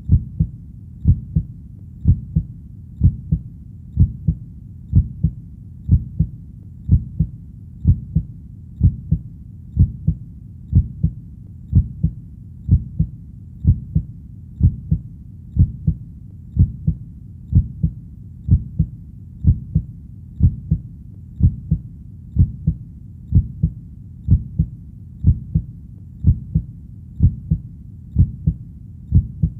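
Heartbeat thumping steadily at about one beat a second, each beat a pair of low thuds (lub-dub), with a low steady rumble between the beats.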